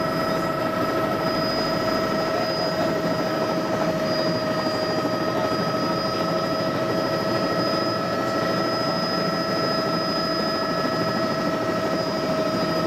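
Helicopter running, heard from inside the cabin: a steady roar with a constant high whine in several pitches that does not rise or fall.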